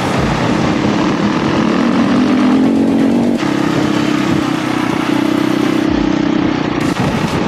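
Enduro motorcycle engine running at fairly steady revs while riding, most likely the KTM 500 EXC's single-cylinder four-stroke, with a slight change in note about three and a half seconds in.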